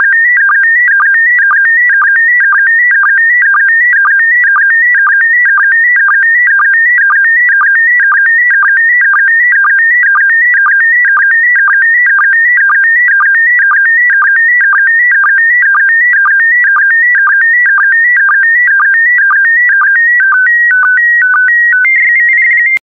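Slow-scan TV image signal in PD120 mode: loud electronic tones warbling between two close pitches in an even pattern about twice a second, sending the picture line by line. Near the end the pattern changes, then a brief steady higher tone cuts off suddenly as the last lines of the image finish.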